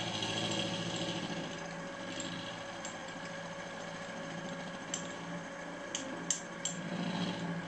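Milling machine running, its end mill taking light skimming cuts across the top face of a brass steam-manifold casting to flatten it. There is a steady motor hum with several steady tones, and a few sharp clicks in the second half.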